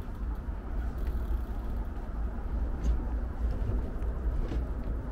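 Steady low outdoor rumble, with a few faint, scattered clicks.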